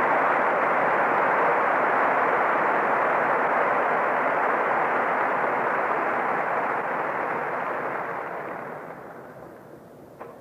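Audience applauding, the applause dying away over the last few seconds.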